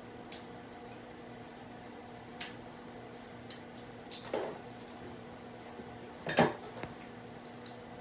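A few scattered clicks and clatters of objects being handled, the loudest about six and a half seconds in, over a steady low hum.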